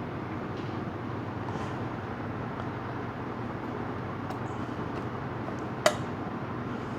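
Steady low background hum with faint handling noises and a single sharp click about six seconds in, as the parts of a touchscreen assembly are handled.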